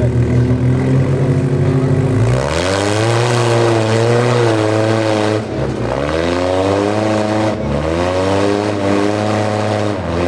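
Rock-crawler buggy's engine holding steady revs, then revving up about two and a half seconds in and rising and falling repeatedly as the buggy climbs over boulders, dipping briefly twice.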